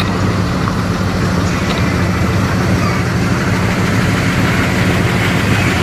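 A car engine idling steadily, with a deep, even low-pitched note.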